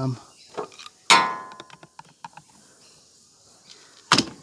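A metal object clangs once about a second in and rings briefly, followed by light clicks of handling and another sharp knock near the end.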